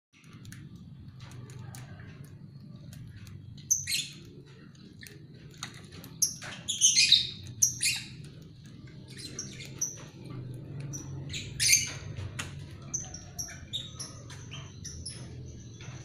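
A flock of lovebirds chattering with sharp, high chirps and squawks, loudest in a few bursts, over a steady low hum.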